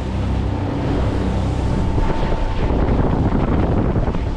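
Honda four-stroke outboard motor running steadily as the boat cruises, with water rushing past the hull and wind buffeting the microphone.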